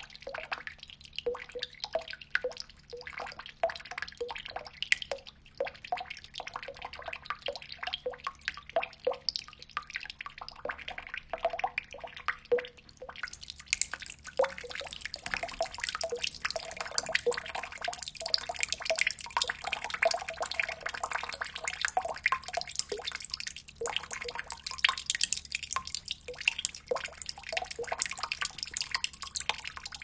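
Water drops falling from overhanging foliage into a pond, each landing with a sharp plink or plop. About halfway through the drops become denser and the sound turns into a brighter, steadier splashing patter.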